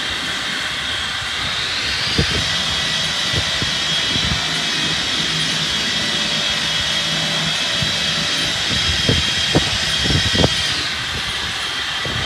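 Ryko SoftGloss Maxx 3 automatic car wash running, a loud steady high whine over a low hum; the whine steps up in pitch about two seconds in and drops back near the end, with occasional short thumps.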